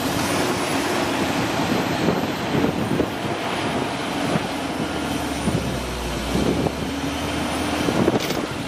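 An engine running steadily, with a faint wavering drone and a few short knocks.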